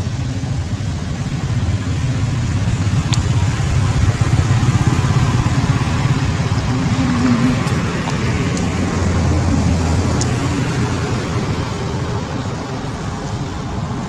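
Low rumble of motor traffic, swelling over the first few seconds and easing off toward the end, with a few faint clicks.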